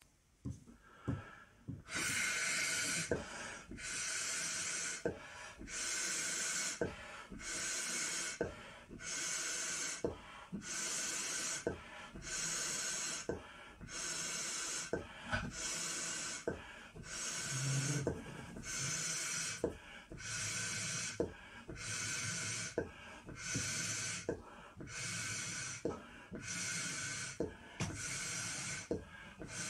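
A 16-inch Unique latex balloon being blown up by mouth: a steady run of forceful breaths into it, about one every second and a half, each a breathy rush, with a short click between breaths. The balloon is swelling and has not yet popped.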